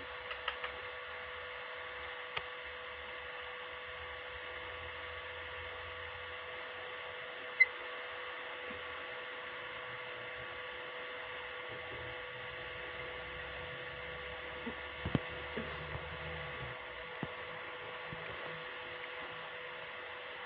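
Steady electrical hum of several held tones over a hiss, with a few faint clicks.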